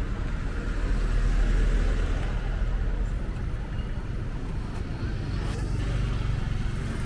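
Light street traffic passing close by: a pickup truck and motorcycles driving past, a steady low rumble that swells about a second in.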